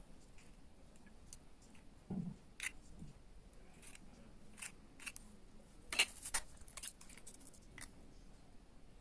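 Faint, scattered clicks and light taps of a knife cracking eggshells and of the shell halves being handled as egg whites are separated from the yolks, with a few sharper clicks about six seconds in.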